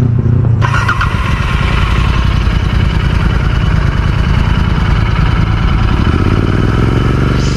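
Royal Enfield Continental GT 650's parallel-twin engine held at about 3000 rpm through an aftermarket Offtrails Hyperstroke S1 Pro exhaust with its dB killers fitted. The throttle opens about half a second in and the note then runs steadily, loud but not harsh.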